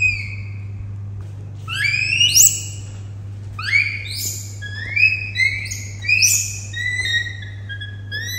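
A baby monkey giving a run of high, squealing calls, about seven in all, each sweeping up sharply and then holding or falling away. A steady low hum runs underneath.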